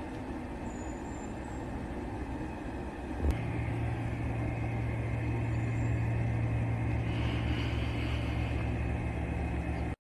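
A steady low mechanical hum that starts abruptly with a click about three seconds in, over a duller rumble before it.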